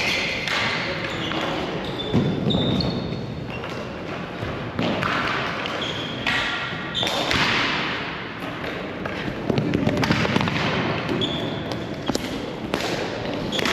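Ball hockey play: sticks and ball knocking, shoes squeaking briefly on the court surface several times, with scattered players' shouts.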